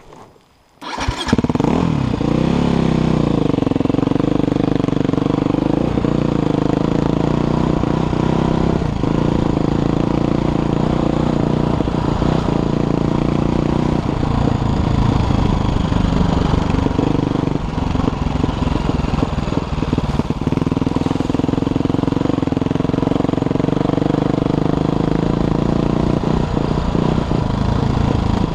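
Dirt bike engine starting about a second in, then running steadily as the bike is ridden along a rough trail, its pitch rising and falling with the throttle.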